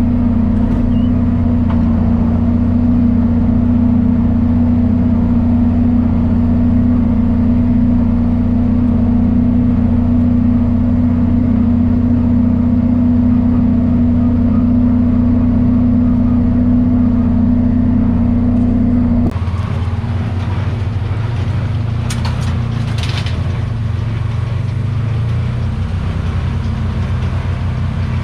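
John Deere 4430 tractor's six-cylinder diesel engine running steadily while baling hay. About two-thirds of the way through the sound changes abruptly to a slightly quieter engine sound, with a few clicks soon after.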